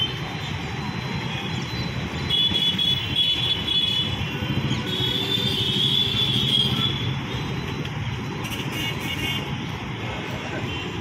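Road traffic of motorcycles and scooters, engines running as they cross, with high-pitched vehicle horn toots a few times.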